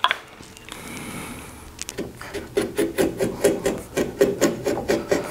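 Bench chisel cutting a knife wall along the scored shoulder line of an oak tenon: a soft scrape of steel on wood, then from about two seconds in a quick run of small ticks, about four a second, as the edge works along the line.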